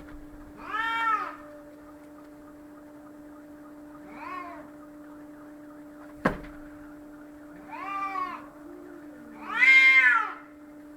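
Domestic cat yowling during a fight: four drawn-out calls, each rising then falling in pitch, the last the loudest. A single sharp knock comes about six seconds in, over a steady low hum.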